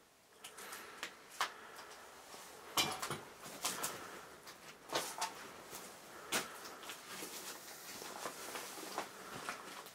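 Irregular knocks, clicks and rustling of objects being handled and moved about, with a few louder wooden knocks.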